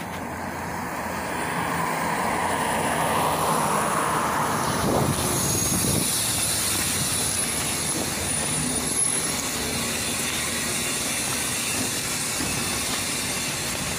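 Volgabus 5270G2 natural-gas city bus pulling up to a stop, its engine and tyre noise swelling over the first few seconds, then running steadily at the stop with the door open. A few faint short high tones come near the middle.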